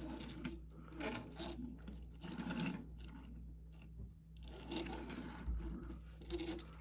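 Plastic Transformers action figures being handled: irregular clicks and rubbing of hard plastic parts, over a low steady hum.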